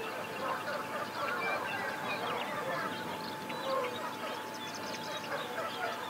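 A dense chorus of many wild birds calling over one another, a steady stream of short chirps, trills and quick rising and falling notes.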